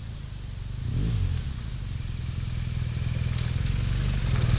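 BMW R1200GS Adventure's boxer-twin engine pulling up a dirt trail toward the camera, growing steadily louder as the bike approaches. There is a brief rev about a second in and a sharp clack about three and a half seconds in.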